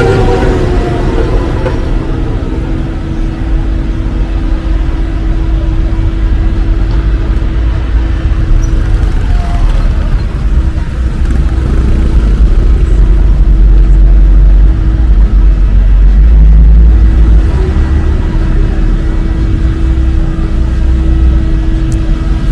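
Busy city street traffic: cars driving past at close range with a heavy, continuous low rumble of engines and tyres, loudest about halfway through. A steady hum runs under it and drops out briefly about two-thirds of the way in.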